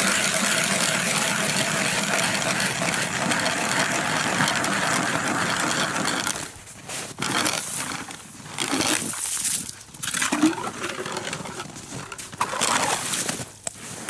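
Hand ice auger boring through lake ice, a steady scraping grind. About six seconds in the grinding stops and gives way to uneven scrapes and knocks as the auger breaks through and is worked up out of the hole.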